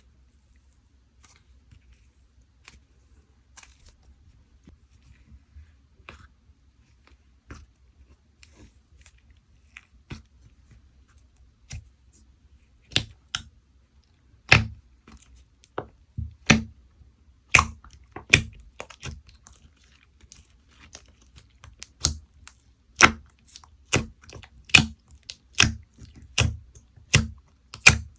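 Slime being worked by hand, squeezed and pressed so that it makes sharp popping clicks. The clicks are faint and scattered at first. From about halfway they turn loud and regular, about one a second, and come closer together near the end.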